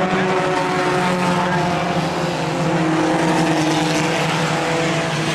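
Compact race car engines running at speed around the track, a steady drone whose pitch drifts slightly up and down.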